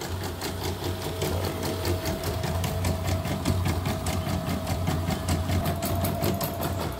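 CNY portable embroidery machine, covers off, stitching a test design: a rapid, even clatter of needle strokes over the steady hum of its motor. It is running after a broken timing belt and a badly worn bobbin case were replaced.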